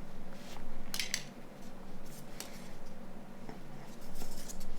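Scattered small clicks and scrapes of plastic phone-housing parts being handled and pried apart during disassembly of a Nokia 9210 frame, with a light, uneven rhythm.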